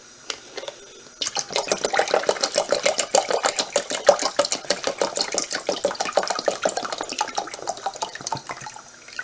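Water being poured into a pet water fountain's plastic reservoir, splashing steadily; it starts about a second in and stops near the end.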